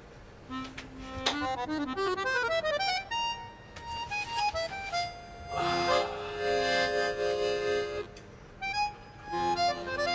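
Instrumental background music: quick runs of notes, then a held chord through the middle, and a short lull before the tune picks up again.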